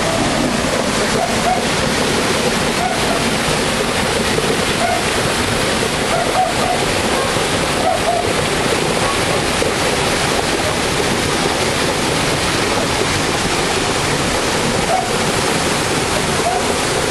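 Small waterfall cascading over boulders into a rocky river: a steady rush of falling water.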